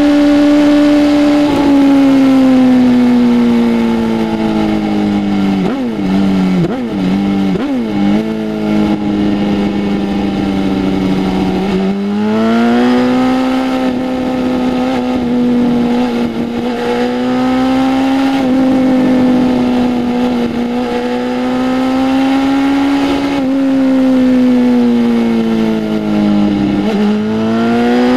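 BMW S1000RR's inline-four engine through a full exhaust system, heard from the rider's seat: running steadily, then winding down as the bike slows, with three quick spikes in revs about six to eight seconds in. About twelve seconds in it pulls up again and holds steady, eases off and picks up again near the end.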